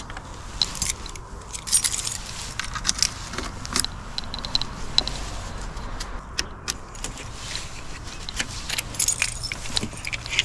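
Irregular plastic and metal clicks and clinks from a Thule roof-mounted bike carrier being unclamped and lifted off the car's roof bars, some with a short metallic ring.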